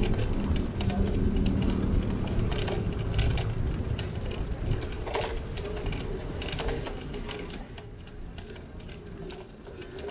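Riding a bicycle along a city street: low road and wind rumble with scattered clicks and rattles, easing off in the second half. A thin high whistle sounds about six seconds in.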